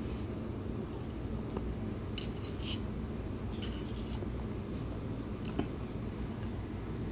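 Cutlery clinking and scraping against a plate during a meal, in two short bursts of quick clicks and one single click later, over a steady low hum.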